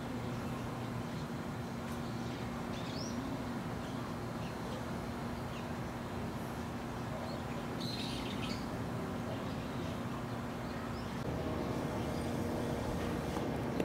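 Steady background hum and noise with a few faint, short bird chirps: a couple about three seconds in and a brighter cluster about eight seconds in. The hum changes pitch about eleven seconds in.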